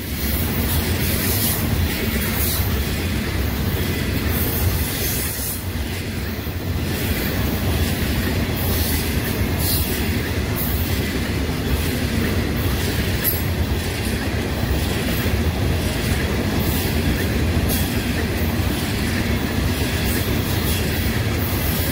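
Freight train of coal cars rolling steadily past: a continuous rumble and clatter of steel wheels on the rails.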